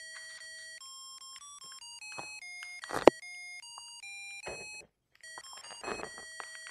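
A Christmas light controller's piezo buzzer playing a beeping electronic melody, one steady tone per note, which breaks off for a moment about five seconds in. Handling knocks and a sharp click about three seconds in sound over it.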